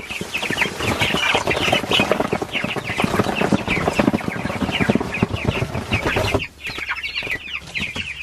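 A flock of young meat-bird (broiler) chicks peeping together in many short, falling chirps. Cardboard and straw rustle as the box they are in is tipped and they scramble out; the rustling stops about six seconds in, leaving only the peeping.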